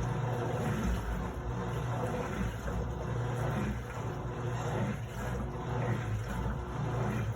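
Electrolux LT09E 8.5 kg washing machine running its quick cycle: a steady motor hum with a churning, fluctuating noise over it.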